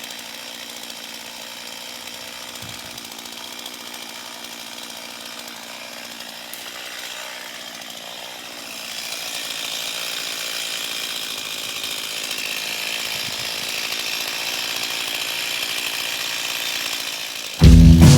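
Gasoline chainsaw running steadily at some distance, getting louder about halfway through. Loud guitar music cuts in at the very end.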